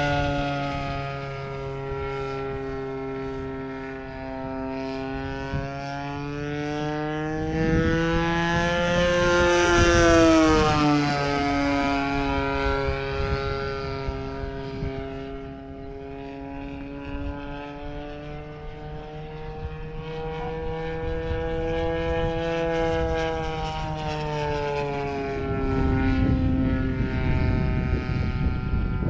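Radio-controlled model airplane's engine droning in flight, its pitch rising and swelling as it passes closest about ten seconds in, then falling away, with a gentler second swell later.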